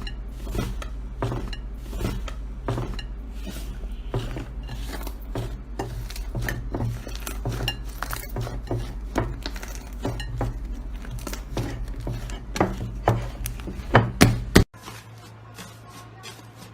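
Slime being pressed and worked by hand, giving a steady stream of sharp clicks and crackles over a low hum. Near the end it cuts off suddenly to a much quieter segment.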